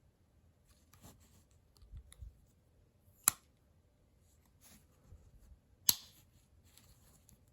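Old IXL Wostenholm stockman pocket knife being handled: a slipjoint blade snaps sharply into place against its backspring twice, about two and a half seconds apart, with faint scraping and clicking of the blades between.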